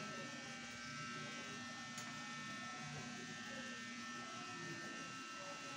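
Faint, steady electrical buzz of a small motor, with a soft click about two seconds in.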